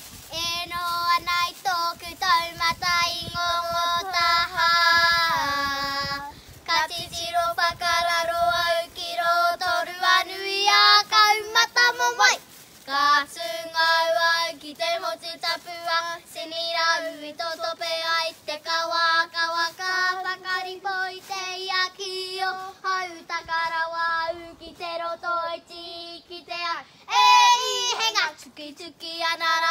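Young girls singing a song together, holding long notes that step up and down in pitch.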